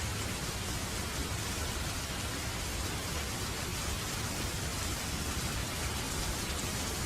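Steady rain falling, an even hiss of drops with no distinct events.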